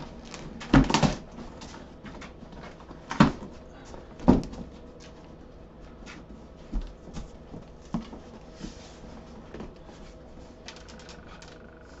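A large cardboard bicycle box is opened by hand, its top flaps pulled up and folded back. There are dull cardboard thumps and rustling, the loudest three in the first four and a half seconds and fainter ones after.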